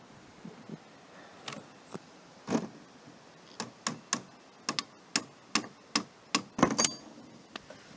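A run of irregular sharp clicks and knocks, sparse at first, then coming faster and louder through the second half before stopping near the end.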